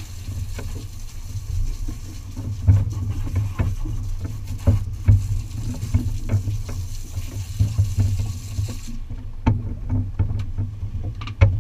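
Aboard a center-console fishing boat at sea: a low steady rumble with frequent scattered knocks and rattles.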